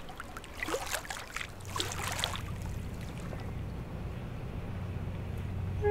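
Water splashing and lapping against a sailboat's hull as a bottlenose dolphin swims at the surface alongside, in short splashes during the first two seconds or so. From about a second and a half in, a steady low hum runs underneath.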